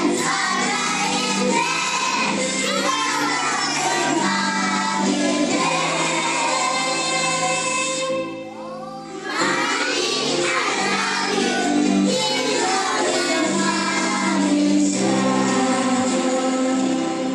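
Children singing a song together over musical accompaniment, with a brief break about halfway through.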